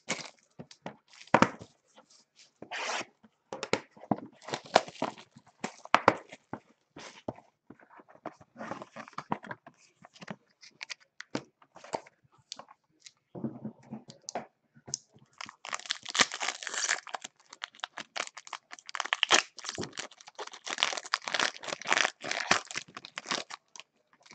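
Foil wrapper of a baseball card pack being handled, torn open and crinkled, with scattered clicks of card handling. The crinkling grows dense and continuous in the second half.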